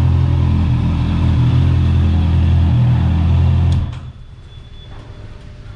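Honda CB650R's inline-four engine idling steadily, then cutting off abruptly just under four seconds in as it is switched off, with a click at the moment it stops.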